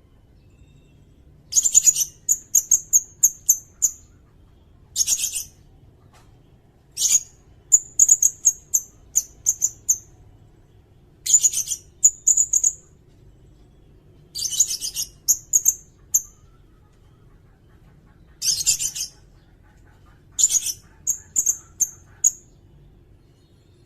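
Sirindet bird singing, its phrase repeated every two to three seconds. Each phrase is a scratchy burst followed by a quick run of high, thin notes.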